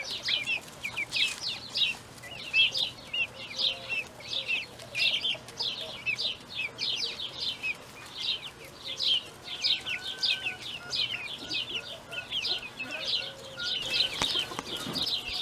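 Baby chicks peeping continually: short, high-pitched, downward-sliding chirps, about two or three a second.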